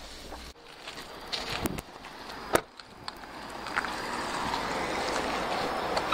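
Getting out of a car: a few clicks and knocks of the car door, with a single louder thump about two and a half seconds in as it is shut, then steady outdoor noise.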